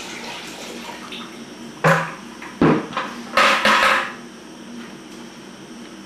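Cold water pouring from a bucket into the still's plastic condenser bucket, tailing off. About two seconds in come a few sharp knocks, then a short run of clattering, as the emptied bucket is handled and set down.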